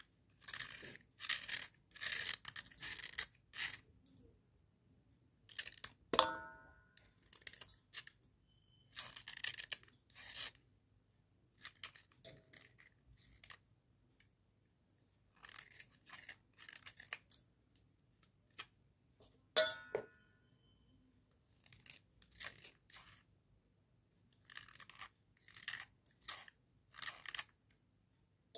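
Wet slate pencils being snapped and crushed between the fingers, in repeated short crunchy bursts with pauses between them. Twice a piece hits the steel plate with a sharp click and a brief metallic ring.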